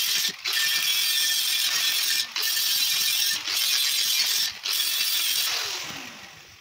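Angle grinder grinding a rusty steel wheel rim to clean it for welding, the disc briefly coming off the metal four times. Near the end it is switched off and the motor winds down with a falling whine.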